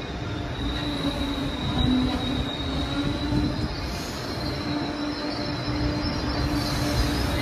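Train rolling past with a steady high-pitched wheel squeal over the rumble of wheels and cars, and a lower steady hum underneath.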